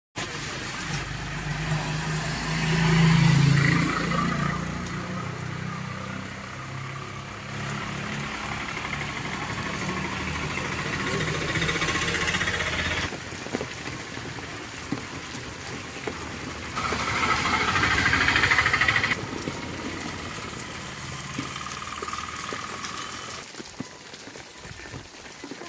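Heavy rain falling with motor vehicles passing on a wet road, their engines humming, loudest early on. The sound shifts abruptly several times.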